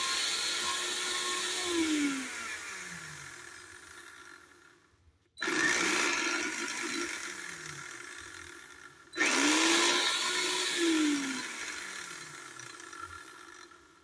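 Electrolux BLP50 blender motor running with the jar empty, switched off about two seconds in and spinning down with falling pitch, then started again twice, about five and nine seconds in, each time running briefly and winding down. The motor now runs after its blown 85 °C thermal protector was replaced.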